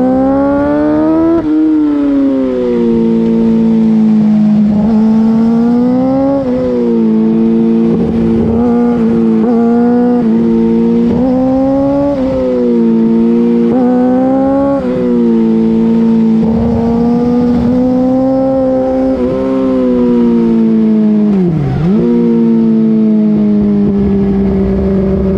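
2008 Yamaha R6 inline-four running through an Akrapovic full race exhaust under way. The revs rise and fall again and again, and a little after three-quarters of the way in they drop sharply and recover.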